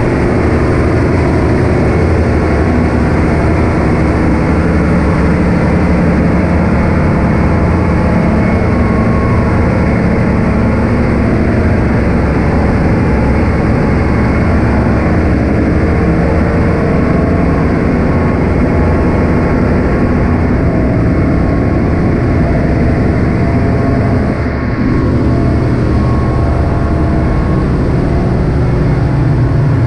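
Loud, steady din of a cargo ship's diesel engine-room machinery running, with no break except one brief dip late on.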